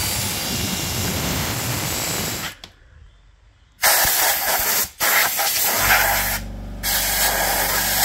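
A cordless drill spins a cleaning attachment inside a welded steel pipe for about two and a half seconds. After a short pause, a compressed-air blow gun hisses into the pipe in several blasts, with a low steady hum coming in about six seconds in.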